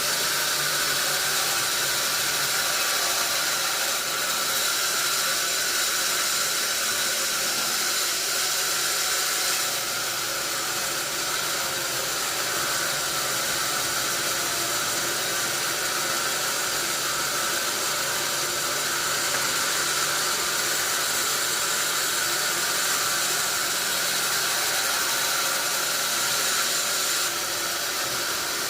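Sawmill saw running steadily, a continuous high hissing noise with a faint hum beneath it that shifts slightly in level a few times.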